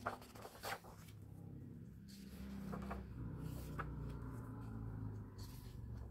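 Paper pages of a large art book being turned by hand: a couple of crisp page snaps right at the start, then softer rustling and a hand brushing the new page flat, over a low steady hum.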